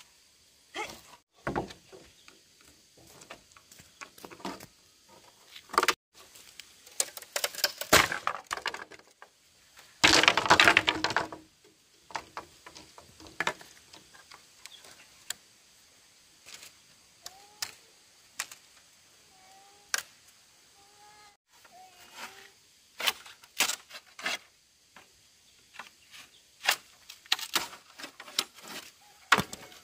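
Wood and bamboo being worked by hand: irregular sharp knocks and cracks, with a longer rasping burst about ten seconds in.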